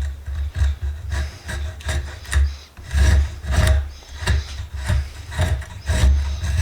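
Stanley spoke shave cutting a wooden screwdriver handle: a run of rasping push strokes, about one to two a second.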